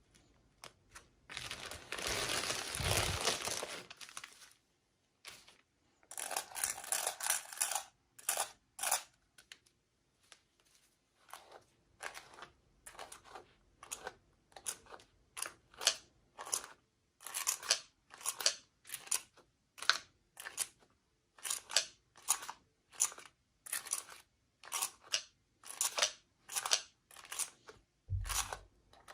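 Toy packaging being torn and crinkled by hand. Two longer tearing stretches come near the start, followed by a long run of short rustling strokes about two a second.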